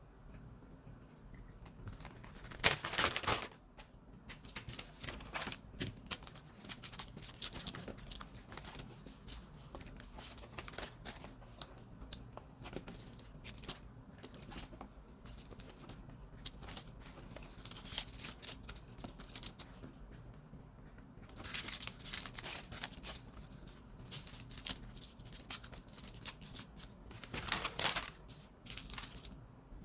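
Small plastic zip bags of diamond-painting resin drills being handled and sorted, crinkling, with the drills rattling inside, played back sped up. The rustling comes in irregular bursts, louder three times: about 3 seconds in, around the middle of the second half, and near the end.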